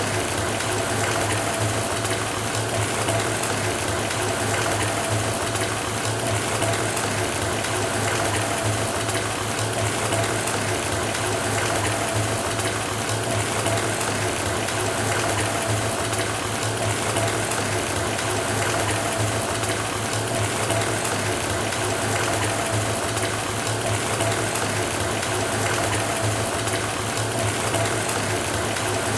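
Bathtub filling from the faucet: a steady stream of water pouring into the tub, with a low hum and a faint steady tone from the running tap.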